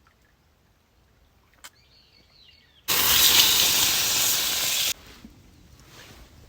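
A loud, steady hiss lasting about two seconds, starting suddenly about three seconds in and cutting off abruptly.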